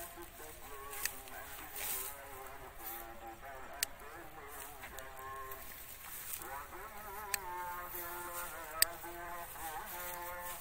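Flying insects, flies, buzzing with a wavering pitch, with four sharp clicks.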